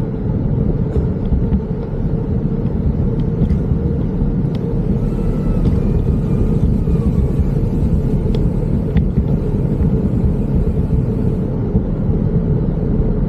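Steady low rumble of wind buffeting the microphone on a bicycle coasting fast downhill, mixed with tyre and road noise.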